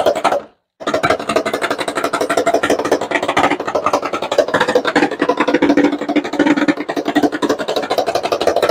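Homemade mechanical engine-sound generator, a motor-driven striker inside a model steamer's hull, running and giving a fast, even stream of knocks meant to imitate a low-RPM workboat engine. It breaks off briefly about half a second in.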